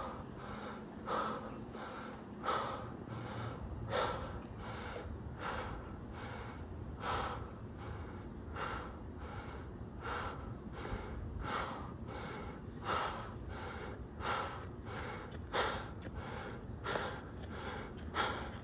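A person breathing hard while running: a heavy breath about every second and a half, with lighter breaths between.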